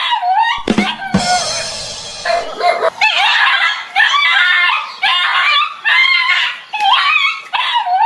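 A dog barking and yelping over and over, roughly once a second, while it attacks a stuffed toy tiger, with a thump about half a second in.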